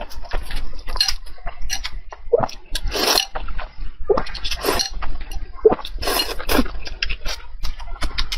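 Close-miked eating: irregular chewing and smacking noises, with occasional clinks of utensils against a dish.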